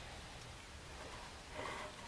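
Faint handling of a fuel pump and sender assembly by gloved hands, with one soft scrape near the end, over a low steady hum.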